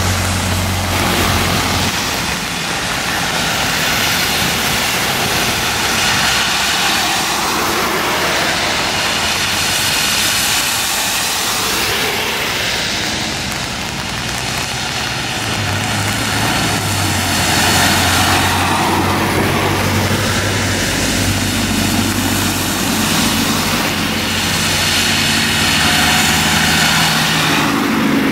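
Transit bus engine running with a low steady drone as the bus drives along a wet road, over a continuous hiss of tyres on wet pavement and spray that swells and fades several times.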